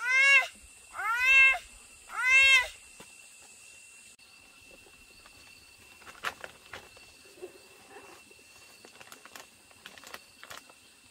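A cat meowing three times in quick succession, each call rising then falling in pitch. Afterwards only faint knocks and plastic rustling.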